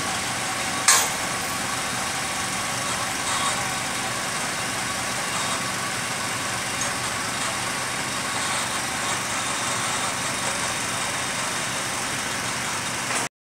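Steady drone of running machinery with a constant hum, and one sharp knock about a second in.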